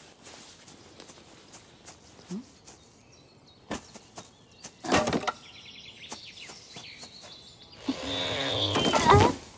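Cartoon sound effects of a child rummaging through dry twigs and branches in snow: scattered rustles and snaps, a loud crack about halfway through, then a longer, louder straining sound near the end as she pulls a branch free.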